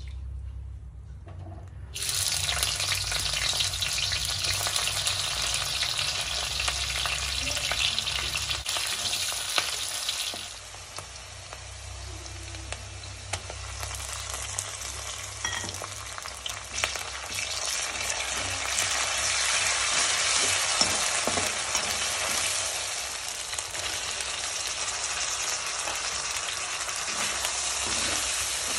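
Sliced onions hitting hot oil in a steel kadai and sizzling loudly from about two seconds in. The sizzle eases after about ten seconds and goes on under a spatula scraping and stirring onions, spice and tomatoes in the pan.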